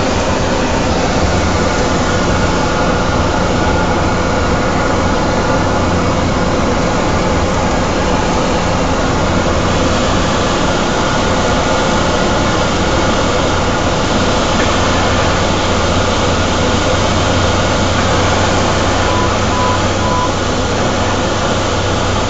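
Cessna Grand Caravan's single Pratt & Whitney PT6A turboprop engine and propeller running steadily, heard inside the cockpit as a loud, even drone with a steady hum. Three short beeps sound near the end.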